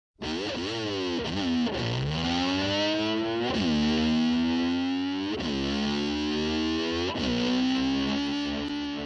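Distorted electric slide guitar imitating a motor scooter starting and revving: the pitch drops and sweeps back up several times like a throttle being blipped, then settles on a held note near the end.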